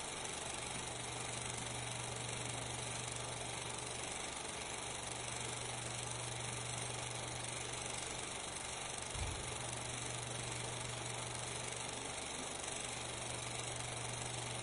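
Steady hiss with a constant low hum and a single click about nine seconds in: the background noise of the film transfer rather than any sound from the scene.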